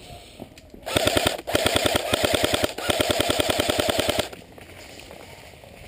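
Electric airsoft rifle firing three rapid full-auto bursts back to back, a fast rattle of shots, ending about four seconds in.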